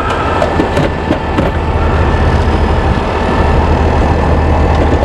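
Medium-duty tow truck engine idling steadily with a low, even drone, and a few light clicks of hand tools over it.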